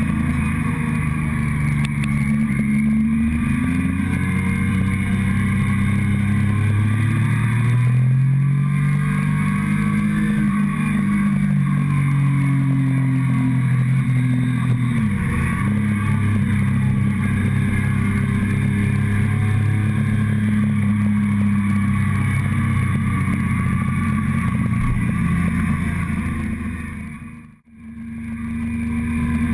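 Motorcycle engine under way, heard through a camera mounted on the fuel tank, its revs rising and falling with throttle and gear changes. The sound drops out briefly near the end.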